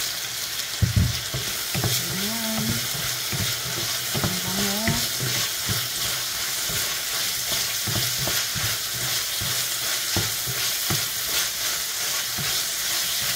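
Chicken, garlic and onion sizzling in hot oil in a wok while a wooden spoon stirs and scrapes them around the pan in repeated strokes. There is a louder knock about a second in.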